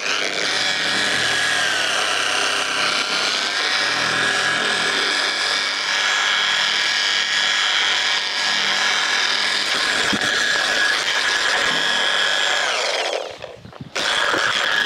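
Draper Storm Force dual action polisher running with a steady high whine as it works a finishing polish into car paintwork. Its pitch dips briefly a couple of seconds in. It stops about thirteen seconds in and starts up again a second later.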